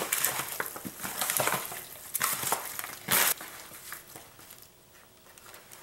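Hands turning over raw, oiled chicken thighs in a disposable aluminium foil pan. The thin foil crinkles and flexes and the meat squishes in irregular crackling rustles, loudest about three seconds in, then dying away near the end.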